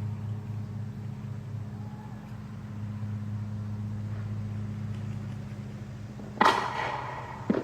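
Steady low hum of a vehicle engine idling. About six and a half seconds in, a sudden loud burst of noise dies away over about a second, followed by a smaller one near the end.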